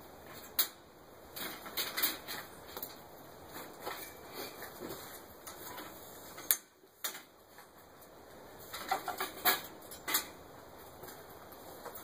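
Irregular clanks, knocks and rattles of a metal trommel frame with roller wheels being handled and lifted on a steel mesh wagon, with a sharp knock about half a second in, another past the middle, and a quick run of knocks in the last third.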